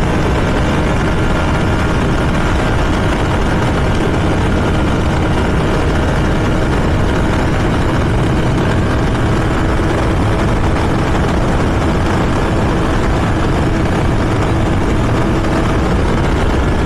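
Kawasaki Z900 inline-four running at a steady high cruise in fourth gear, around 105–110 mph, its note holding almost level under heavy wind rush on an unfaired naked bike.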